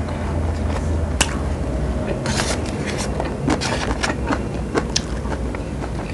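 Close-up eating sounds of a person chewing a bite of gimbap, with scattered small clicks and crackles over a steady low hum.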